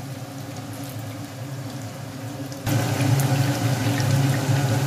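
Batter-coated chicken pieces frying in shallow oil in a pan, a steady sizzle with fine crackles. A low steady hum underneath gets suddenly louder about two and a half seconds in.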